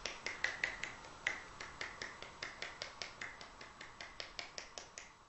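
One-handed 'clap': a loose hand is shaken with a whipping motion so the relaxed fingers slap against each other, giving a fast run of sharp clacks, about six a second, that slowly fade and stop just before the end.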